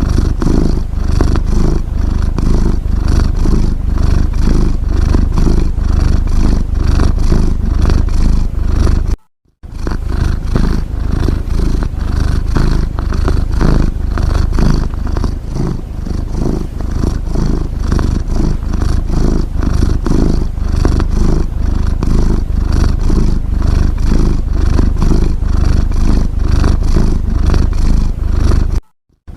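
A domestic cat snoring: a loud, close, continuous rumble with an even pulse. It cuts out to silence for a moment about nine seconds in and again near the end.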